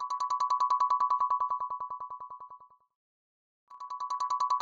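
Electronic trilling ring tone: one beeping pitch pulsed about a dozen times a second. It rings for nearly three seconds, stops, and starts ringing again near the end.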